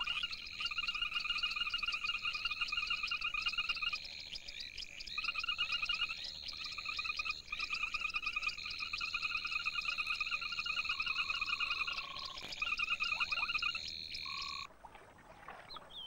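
Frogs calling in rapid pulsed trills at a few different pitches, overlapping and starting and stopping, from a small frog's inflated throat vocal sac. The chorus breaks off suddenly near the end, leaving fainter calls.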